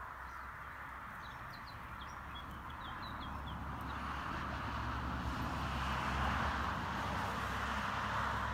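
Steady outdoor background noise that grows louder about halfway through, with a quick series of faint, high bird chirps in the first half.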